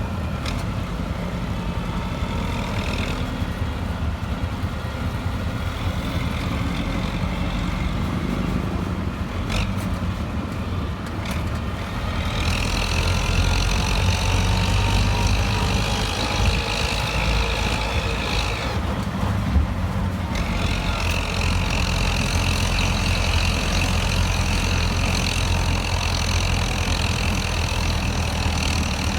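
A motor engine running steadily, with a high, even buzz that comes in about twelve seconds in, drops out briefly a little later, and returns.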